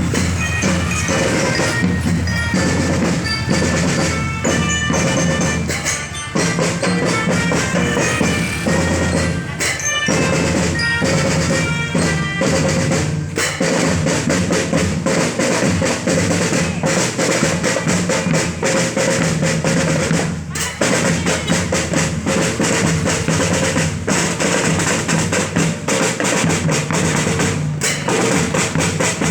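School marching band playing: snare and bass drums keep a dense, steady beat with rolls, under a melody of bright pitched notes from the band's melodic instruments.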